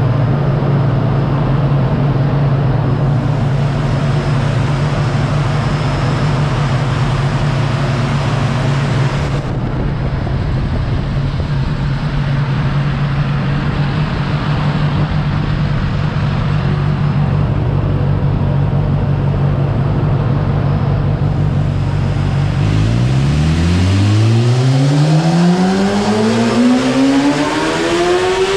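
2018 Kawasaki ZX-10R's inline-four engine running through a Jeskap aftermarket exhaust, idling steadily for most of the time, then revved in one long rise in pitch near the end.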